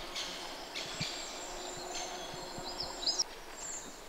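Small forest birds calling: a series of short high-pitched chirps, with a few quick rising notes about three seconds in.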